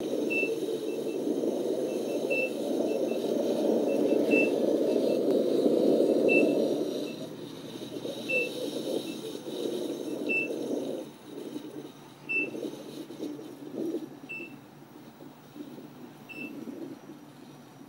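Short, high single-pitch beeps from a KingSong electric unicycle's alert: several close together at first, then one about every two seconds. Under them is a rush of wind and riding noise, loud for the first seven seconds, then coming in patches and fading.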